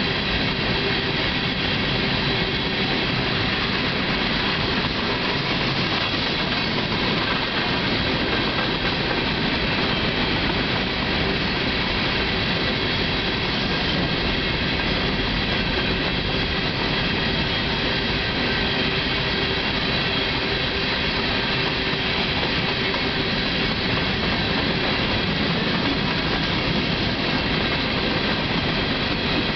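Freight train of open-top coal cars rolling steadily past: a continuous rumble and rush of steel wheels on rail, unbroken throughout.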